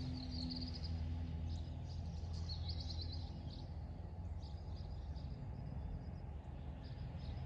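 Small songbirds calling: a quick trill of rapid high notes at the very start and another about two and a half seconds in, with scattered short chirps after, over a low steady rumble.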